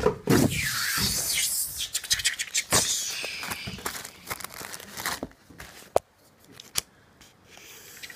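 A sheet of paper scraping and rustling as it is handled and slid over a table, followed by a run of sharp taps and clicks, then a pencil scratching short strokes on the paper near the end.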